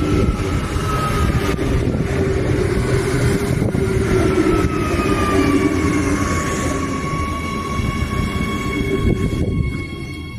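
Adelaide Metro 4000-class electric railcar moving past close by, its traction motors whining in a tone that slides down in pitch and then holds steady over the rumble of its wheels. Heavy wind buffeting on the microphone adds to the low rumble. The sound drops in level shortly before the end.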